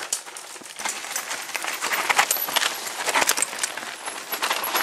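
Mountain bikes clattering over a rocky forest trail: a dense, irregular rattle of knocks as tyres, frames and chains hit the stones.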